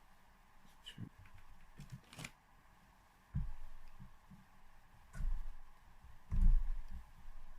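Light metallic clicks, then three dull knocks, the last the loudest, as the two-stroke cylinder barrel is handled and eased down over the piston and its rings.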